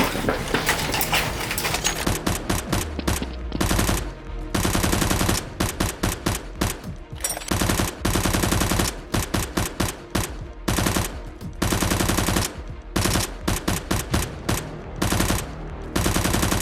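Rapid automatic gunfire in repeated bursts of a second or two, with scattered single shots and short pauses between them: the dubbed-in gun sound effects of a staged firefight.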